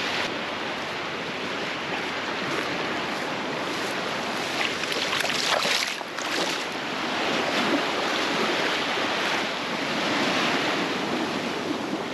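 Small waves washing in shallow sea water at the shoreline, with wind on the microphone and a few brief splashes about halfway through.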